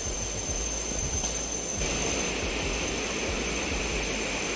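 Steady rushing roar of a waterfall heard from nearby, with a brighter hiss coming in about two seconds in.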